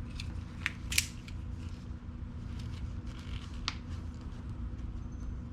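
A few short, sharp clicks and snips from a cutting tool trimming something off, over a low steady hum.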